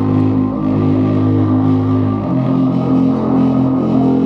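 Music with a strong bass line played loud through a 5.25-inch subwoofer driver, mounted face-down in a small ported box and driven by a mini amplifier. A low bass note holds, then steps a little higher about two seconds in.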